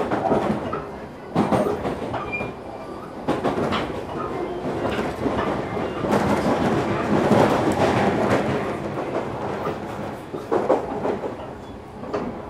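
JR Kyushu 305 series electric train running, heard from inside a motor car: a steady rumble of running noise with the wheels clicking over rail joints, swelling a little louder about halfway through.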